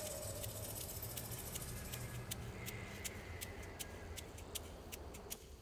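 A wavering held music note fades out in the first half second, leaving faint outdoor background hiss scattered with short sharp ticks and a few thin high steady tones.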